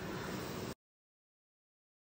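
Fish and drumstick curry boiling vigorously in a metal pot, a steady bubbling that cuts off abruptly under a second in, leaving dead silence.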